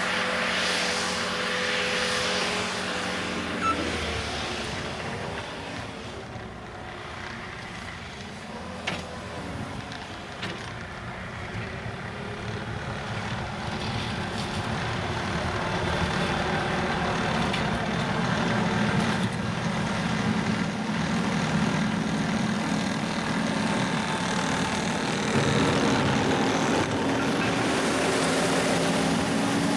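New Holland C232 compact track loader's diesel engine running under work, its engine note dropping a few seconds in and climbing back up to a higher, louder pitch from about fifteen seconds on.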